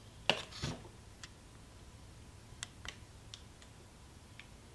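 Faint, irregular small plastic clicks, about eight over four seconds, from a Garmin Dash Cam 55 being handled and its side buttons pressed.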